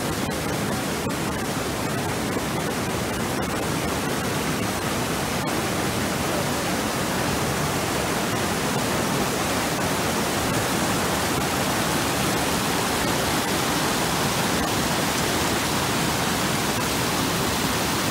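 Fast, silty glacial meltwater stream rushing over boulders, heard close up as a loud, steady rush of whitewater.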